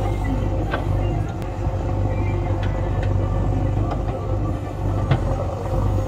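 JCB 3DX backhoe loader's diesel engine running steadily under load with a low hum as the backhoe arm swings, with a few sharp knocks from the machine.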